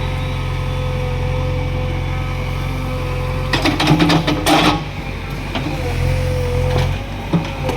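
Diesel engine of a JCB 3DX backhoe loader running steadily while digging, with a steady whine over the engine hum. About three and a half seconds in there is a short burst of clattering knocks lasting about a second.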